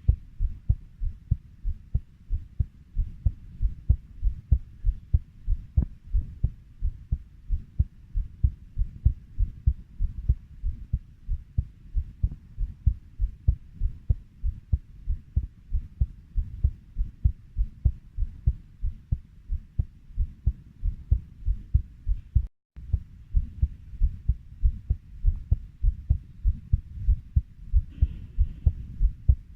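Heartbeat at 90 beats per minute: a steady run of low, even lub-dub thumps, about three a second. A very short dropout comes about two-thirds of the way through.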